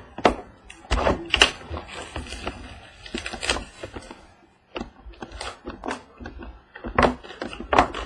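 Plastic shrink wrap crinkling and a cardboard trading-card box being handled and opened: irregular crackles, clicks and small knocks, with a few louder knocks and a short lull about halfway through.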